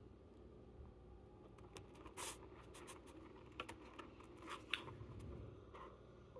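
Faint rustling and scattered light clicks of hands handling flatbread and pieces of roast chicken while putting a wrap together, with a few sharper clicks in the middle.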